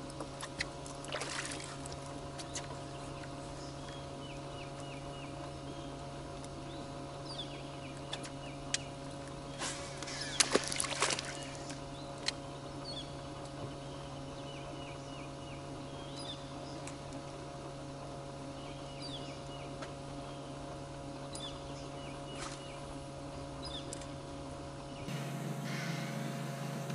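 An electric boat motor runs with a steady hum of several fixed tones, while birds chirp repeatedly. A few sharp knocks and clicks come in the boat about a second in and again about ten seconds in.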